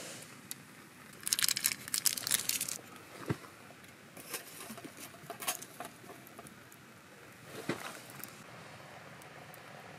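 Plastic wrapper of a hot-pot seasoning cube crinkling as it is torn open, for about a second and a half, followed by a few separate light clicks and taps.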